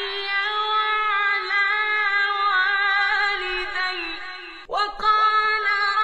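A man's high voice chanting Quran recitation in a melodic style, holding long, ornamented notes. It breaks off briefly about three-quarters of the way through, then resumes.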